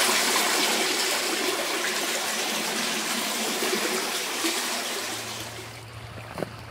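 Muddy floodwater rushing steadily through a corrugated metal culvert pipe, heard from inside the pipe. The rush eases off near the end, with one brief knock just before it ends.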